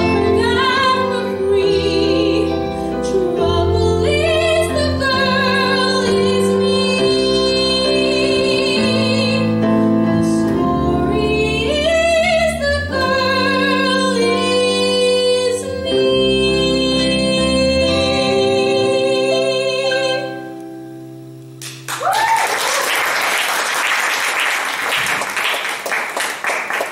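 A woman sings a musical theatre song, accompanied by keyboard, bass guitar, drums and electric guitar. She ends on a long held note that fades out about 20 seconds in. About two seconds later the audience starts applauding.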